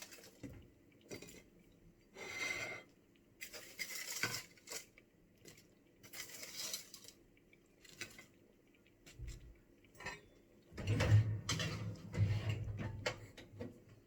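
Metal utensil scraping and clinking against a baking tray and plate as oven chips are served, in short scattered clatters, with a longer, louder clatter and low rumble about eleven seconds in.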